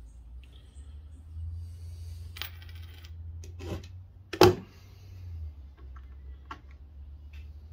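Small metal objects clinking on a workbench: a few light clicks and one loud metallic clink with a short ring about four and a half seconds in, over a low steady hum.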